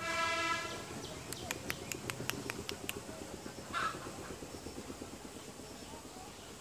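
A horn sounds for about a second at the start. A rhythmic rumble follows, fading over several seconds, with scattered sharp clicks and a short burst about four seconds in.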